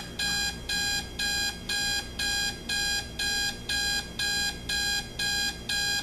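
Elgin 4584E digital alarm clock's alarm beeping: short, high-pitched electronic beeps repeating evenly at about two a second.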